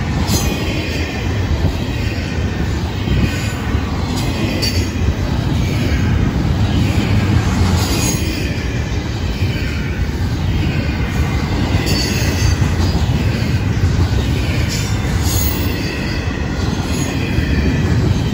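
Florida East Coast Railway double-stack intermodal well cars rolling past close by: a loud, steady rumble of steel wheels on rail, with a faint wheel squeal and a few sharp clicks.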